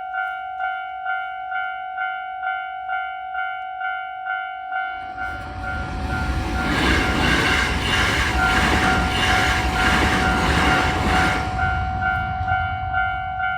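Japanese railroad crossing warning bell ringing its repeated "kan-kan", about two strikes a second. A Hankyu train passes from about five seconds in to about twelve seconds, its running noise swelling over the bell and then fading, while the bell keeps ringing.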